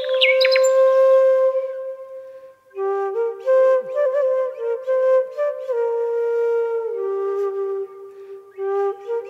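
Background flute music. A long held note fades out about two and a half seconds in, then a slow stepwise flute melody begins.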